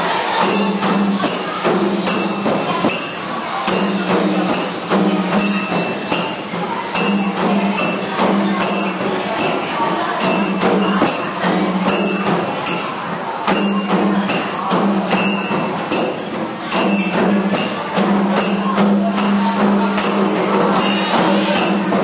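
Music with a steady beat, about two high jingling percussion hits a second over a sustained low tone.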